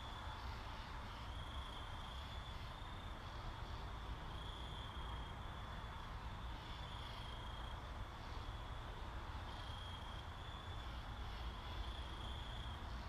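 Insect chirping in short high bursts, repeating roughly once a second, over a steady low hum.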